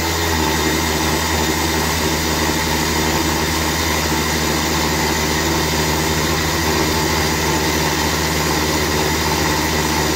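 Electric countertop blender running steadily at full speed, blending milk and strawberries into a shake: a constant motor whine with a churning liquid load.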